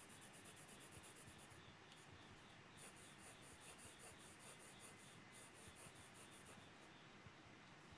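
Faint scratching of a graphite pencil on drawing paper in quick, even hatching strokes, about nine a second. The strokes pause briefly about two seconds in and stop a little before the end.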